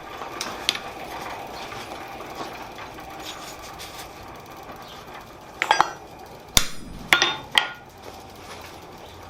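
Blacksmith's hammer striking steel on the anvil, a handful of sharp blows in the second half, with lighter metal clinks and tool handling over a steady background noise, in the work of setting the tongs' rivet and fitting the jaws.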